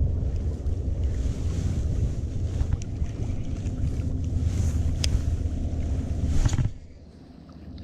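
Wind buffeting the microphone: a heavy, rough low rumble that drops away suddenly near the end, with a couple of faint ticks.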